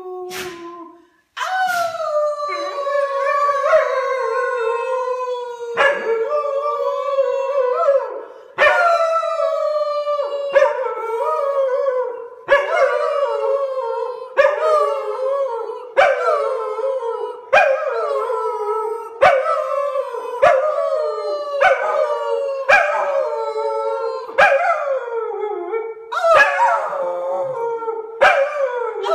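Brown-and-white spaniel howling, its muzzle raised, in long wavering notes that start again every second or two, with a woman singing along.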